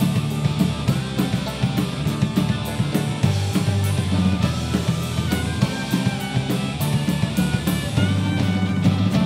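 Celtic punk band playing live: electric violin over acoustic guitar and a drum kit beat.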